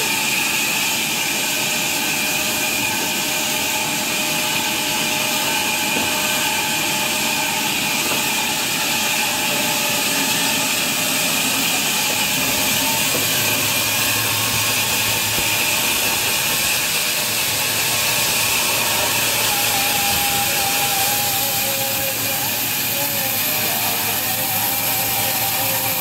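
Sawmill band saw running and cutting through a timber plank: a steady hissing noise with a faint hum underneath.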